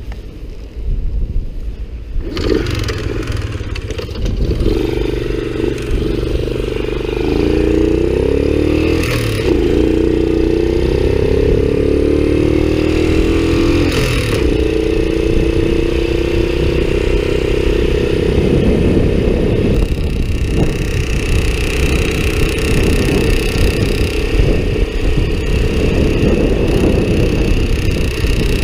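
Honda Cub's small single-cylinder four-stroke engine starts about two seconds in and runs, its revs wavering up and down in the middle before settling to steady running. It carries an abnormal mechanical noise that has grown louder over time, which the owner thinks calls for a cam chain check.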